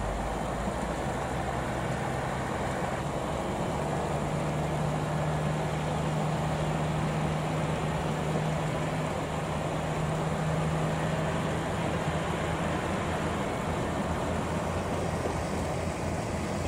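Single-car diesel railcar running along the line, its engine a steady low drone that swells in the middle and then eases off as the car passes.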